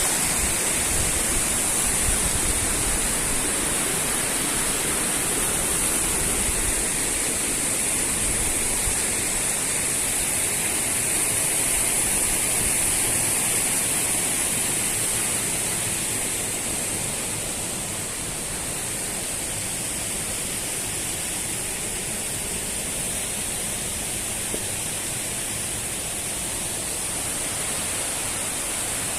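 Water of the Allerheiligen waterfalls rushing steadily over the rocks, a continuous hiss that eases a little about halfway through.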